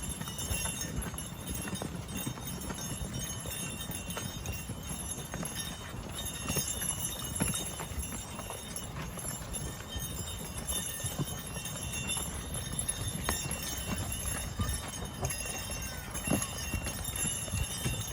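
Hooves of a team of Belgian draft horses stepping unevenly as they walk along pulling a plough.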